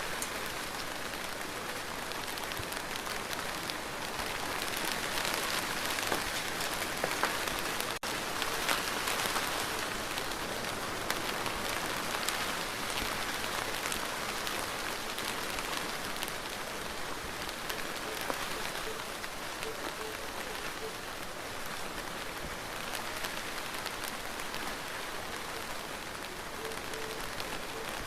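Steady rain falling, a dense patter of drops hitting a surface, a little heavier for several seconds in the first half.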